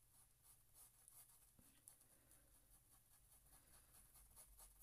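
Faint scratching of a paintbrush scrubbing paint into fabric, in quick repeated strokes, several a second.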